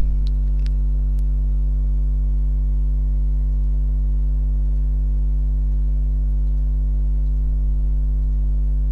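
Steady electrical mains hum, a low buzz with a row of overtones, running underneath throughout. A few faint clicks come in the first second or so.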